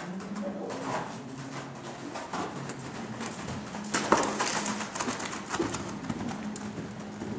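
Hoofbeats of a ridden horse on soft arena dirt, loudest about four seconds in as it passes close.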